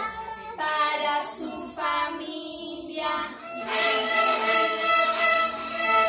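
Young children singing a simple children's song together while playing along on beginner violins. The tune moves in a few long held notes.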